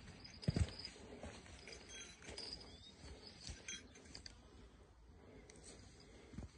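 Faint, steady high-pitched insect trilling, with a few low thumps from footsteps and handling, the clearest about half a second in and near the end.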